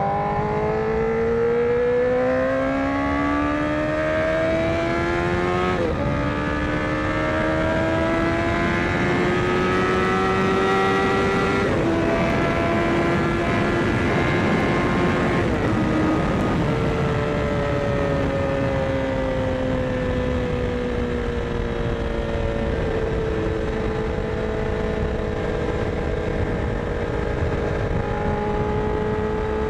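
Honda CBR1000RR Fireblade inline-four with a Yoshimura exhaust, heard from the rider's seat over wind rush. The revs climb through two gear changes, hold steady for a few seconds, then change again about sixteen seconds in and ease off slowly.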